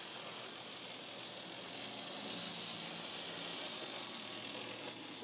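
Lima Class 55 OO-gauge model locomotive running on track under DCC, its pancake motor and gears giving a steady whirr. The whirr grows a little louder about two seconds in.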